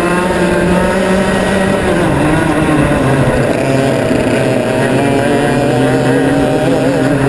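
Formula Rotax Max 125cc single-cylinder two-stroke kart engine running at race pace, heard onboard. Its pitch drops about two seconds in, then climbs slowly again as it pulls back up.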